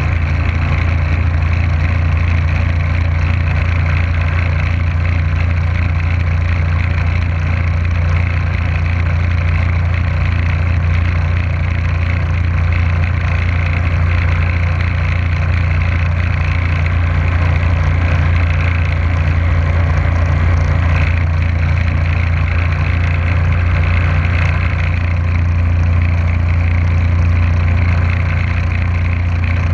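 Motorboat engine running steadily at cruising speed with a low, even hum, over the rush of water from the wake.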